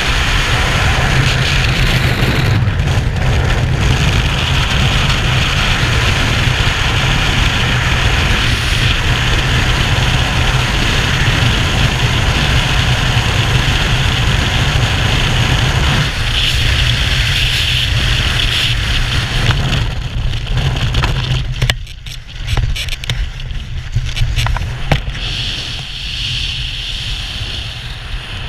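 Wind rushing hard over a skydiver's helmet-camera microphone in freefall, a loud steady rumble. About three-quarters of the way through it suddenly drops and turns gusty and uneven.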